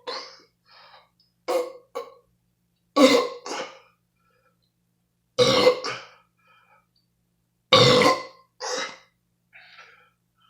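A man burping over and over: about four loud burps two to three seconds apart, each followed by a shorter, smaller one, with a last faint one near the end.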